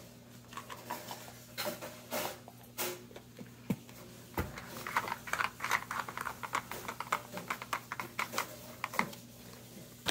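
Red plastic lids of a dog puzzle feeder tray being handled and pressed closed: scattered light plastic clicks and taps, turning into a quick run of clicking about halfway through.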